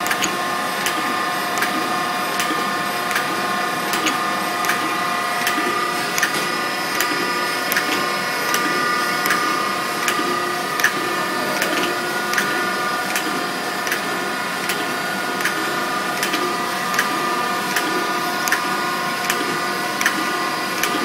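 Norton surface grinder running, its grinding wheel grinding an O1 tool-steel blade under flood coolant: a steady whine of several tones with regular light ticks about every three-quarters of a second.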